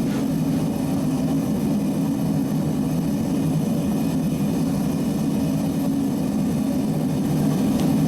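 A steady, unbroken low drone at an even level, with no beats or strikes.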